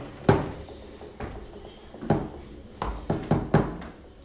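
Foosball in play on an Ullrich table: a string of sharp, irregular knocks as the ball is struck by the players on the rods and hits the table, several coming in quick succession near the end.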